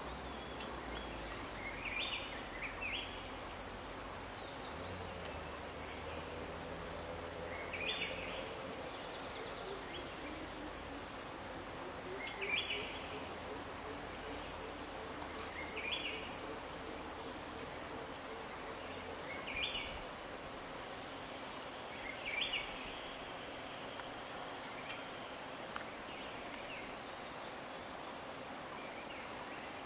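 Forest insects droning in a steady, high-pitched chorus. A short call repeats over it about every four seconds.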